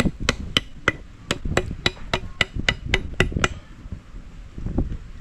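Knife blade knocking against a cuttlefish as it is cleaned: a quick, even run of sharp clicking knocks, about three or four a second, that stops about three and a half seconds in.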